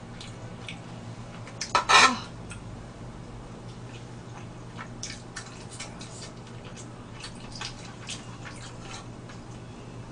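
Close-up eating sounds: a person chewing braised pork ribs, with many soft, wet mouth clicks and smacks, and one short louder noise about two seconds in, over a steady low hum.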